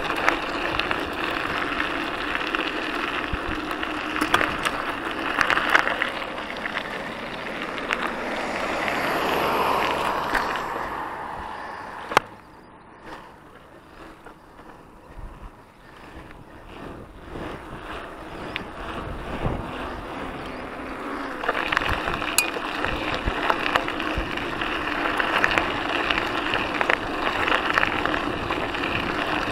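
Mountain bike rolling along a path: tyre noise and rattling from the bike, with wind on the microphone. A sharp click comes about twelve seconds in, and the noise then drops to a quieter hum on smooth asphalt. Near the end it grows louder and rougher again on a dirt and gravel track.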